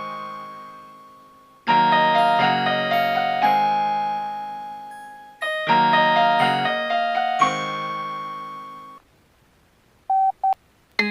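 Polyphonic ringtone playing through an Alcatel OneTouch Retro 2017B flip phone's speaker: an electric-piano-like phrase repeating about every four seconds. It stops suddenly about nine seconds in, a few short beeps follow, and a different ringtone starts at the very end.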